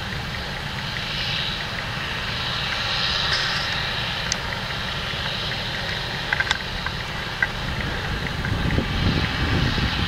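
Steady drone of a Claas Lexion 780 combine harvester working in wheat alongside a John Deere 6215R tractor towing a chaser bin. A few sharp ticks come about six and a half seconds in, and the low rumble swells near the end.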